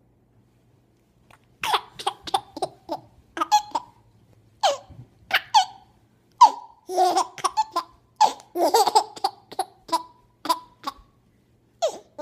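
Six-month-old baby laughing: a long run of short bursts of giggling that starts about a second and a half in and goes on in fits with brief pauses.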